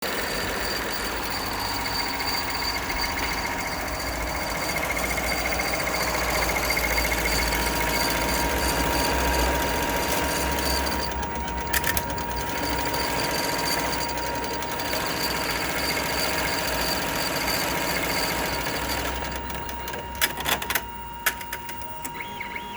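Sewing machine running with an abnormal noise. It runs continuously, stops about nineteen seconds in, and a few sharp clicks follow near the end.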